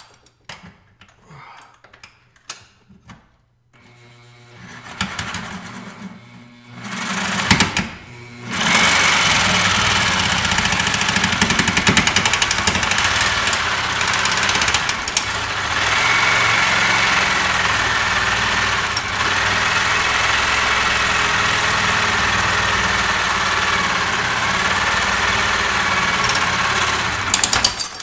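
Reciprocating saw with a Milwaukee double duty blade cutting through a rusted, stripped steel bolt on a fuel tank strap. After a few light clicks and two short bursts, it runs steadily for about twenty seconds with a wavering whine, then stops suddenly near the end.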